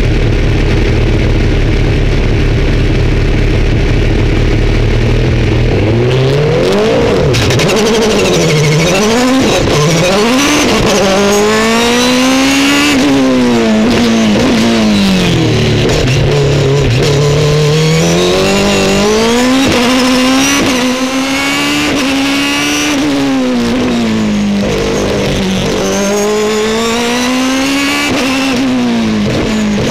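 Osella FA30 racing prototype's engine, first running at a steady low note, then from about six seconds in revving hard, its pitch climbing and dropping sharply again and again with quick gearshifts and falling as it slows for corners.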